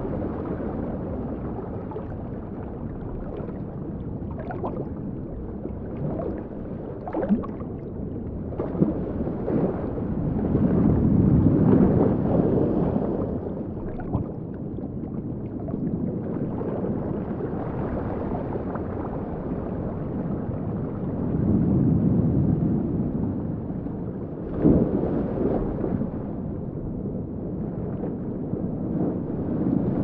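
Sound-designed underwater sea ambience, not a recording: a low, muffled wash of moving water that swells louder twice, with a few short sharp clicks.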